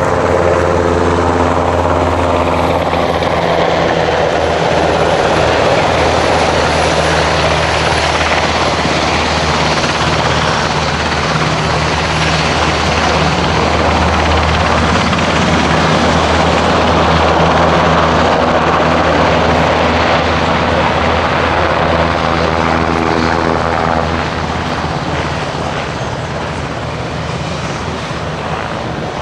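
Mil Mi-17 'Hip' helicopter in flight: a steady low thrum from its main rotor over the drone of its twin turboshaft engines, with a faint high turbine whine. The sound eases off a little near the end.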